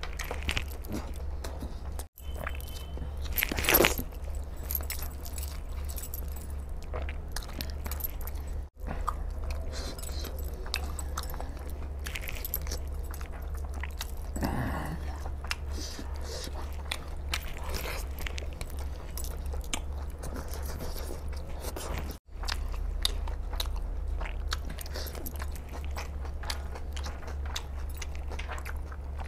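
A man chewing and biting chicken curry with rice, eating by hand: close, many small clicking mouth sounds over a steady low hum. The sound breaks off for an instant three times.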